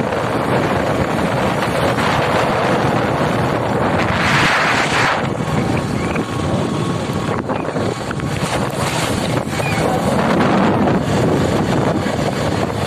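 Steady wind rushing over the microphone and road noise from a vehicle travelling at speed, with a brief louder rush of hiss about four seconds in.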